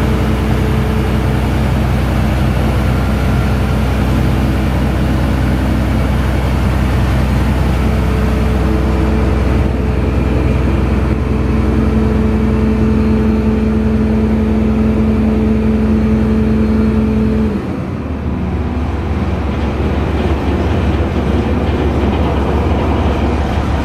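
Vactor 2110 combination sewer truck's machinery running steadily: a heavy diesel drone with a steady whine on top. The whine cuts off suddenly about three-quarters of the way through, leaving the engine drone.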